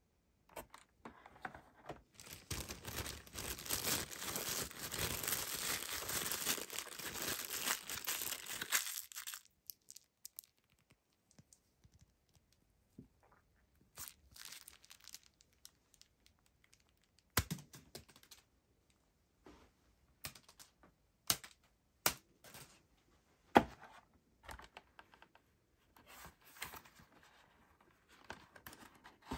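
Phone-case packaging being opened by hand: several seconds of steady tearing and crinkling near the start, then scattered light clicks and taps of the cardboard box being handled, a few of them sharper knocks.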